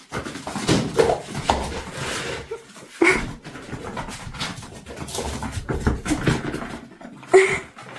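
Dog panting and moving about, with a couple of short high whimpers about three and seven seconds in.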